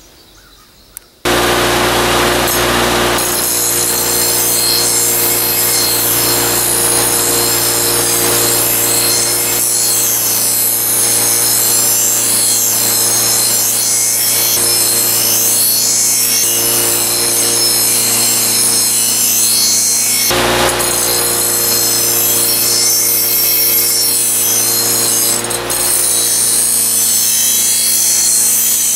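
Power grinder running against steel: a loud, steady grinding with a motor hum underneath, starting about a second in and briefly breaking off about twenty seconds in.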